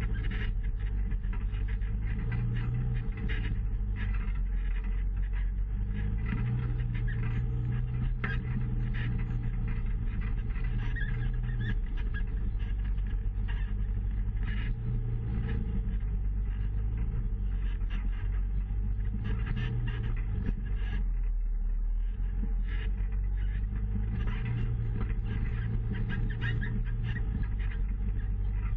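Side-by-side UTV engine running under varying throttle as it drives a rocky dirt trail, the engine note rising and falling every few seconds, with frequent rattles and knocks from the vehicle bouncing over rocks.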